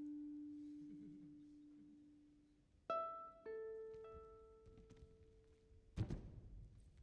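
Sparse live music from a string quartet with drummer and sampler: single notes ring out and slowly fade. A low note dies away over the first couple of seconds, then two higher notes are struck about three seconds in. A dull thump comes about six seconds in.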